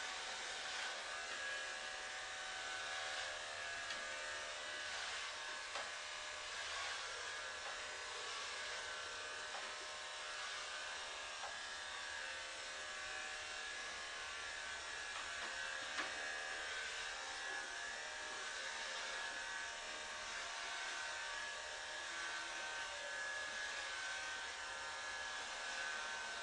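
Electric hair clippers running with a steady buzz while shaving a head, with a few small clicks and one sharper click past the middle.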